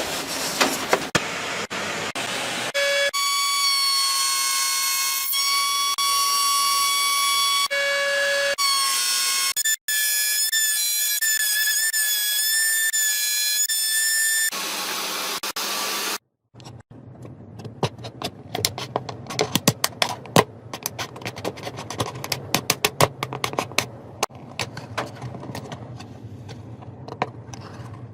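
A power tool's steady high-pitched motor whine, heard in several short takes at slightly different pitches, followed by a long run of sharp, irregular taps and clicks.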